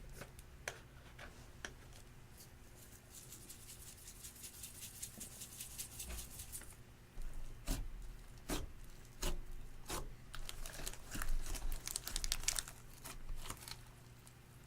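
Hands kneading and stretching clear slime mixed with eyeshadow and glitter: sticky crackling with many small clicks, and a few louder pops as air pockets squish out in the middle.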